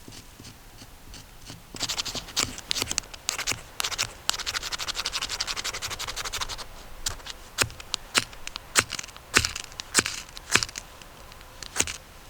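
Rapid scraping and crackling for a few seconds, then a series of separate sharp cracks.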